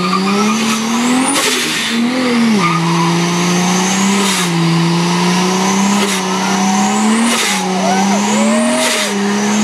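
2JZ-swapped Scion xB doing a burnout: its straight-six engine is held at high revs that rise and dip, while the spinning rear tyres squeal. Over it, a rising whistle cut off by a burst of hiss repeats about every one and a half seconds.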